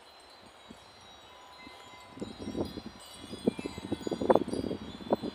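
Wind chime tinkling, with thin high tones ringing on. From about two seconds in, a run of close, irregular knocks and crackles comes over it, loudest a little past four seconds.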